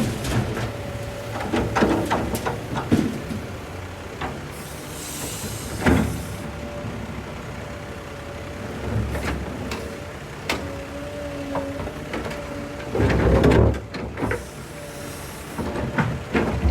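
Excavator running and loading a dump truck: a steady engine note with a wavering hydraulic whine, broken by clanks and knocks of the bucket and a heavy rumbling thud of a load dropping into the truck bed about three-quarters of the way through. Two short bursts of hiss come in between.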